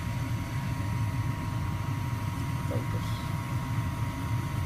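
Trane 80% gas furnace running after a control-board replacement, with a steady low hum.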